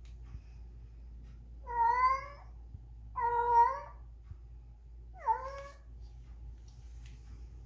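Spayed female domestic cat giving three drawn-out meowing cries, the second the loudest and the last shorter, falling in pitch. These are the yowls of a cat calling for a mate, which the owners take for her being in heat.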